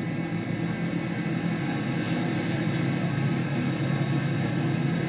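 Steady low rumble of an MD-80 jet airliner's engines as it rolls down the runway just after landing.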